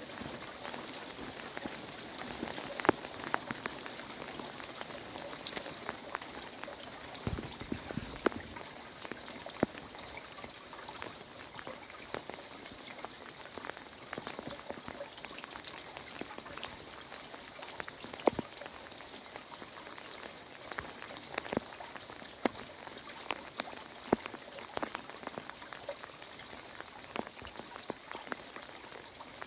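Heavy rain falling steadily, with frequent sharp taps of drops striking close surfaces.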